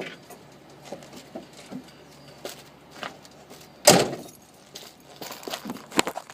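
Scattered small clicks and rattles with one louder sharp thump about four seconds in and a few more knocks near the end.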